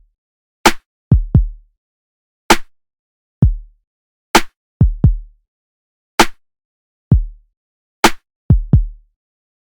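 Sparse drum-machine beat with nothing else under it: deep kick thumps that drop in pitch, some in quick pairs, and a sharp snare or clap hit about every two seconds.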